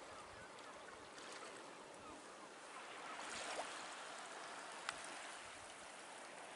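Faint shoreline ambience: small waves gently lapping against the rocks and seaweed, rising a little midway, with one sharp tick about five seconds in.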